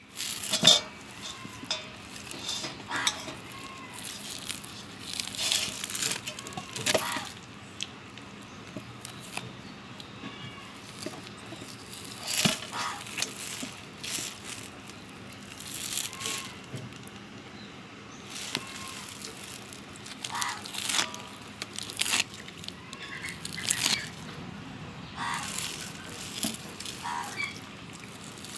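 Hands squeezing and kneading the stringy pulp of a ripe palmyra palm fruit in a steel bowl: irregular wet squelching and rustling strokes every second or so, some louder than others.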